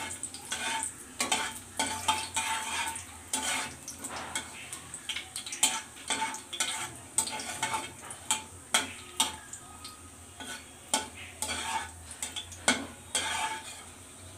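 Metal spatula stirring in a metal kadai, with irregular scrapes and clinks against the pan, over the light sizzle of whole spices (bay leaves, dried red chillies and cumin seeds) frying in hot mustard oil.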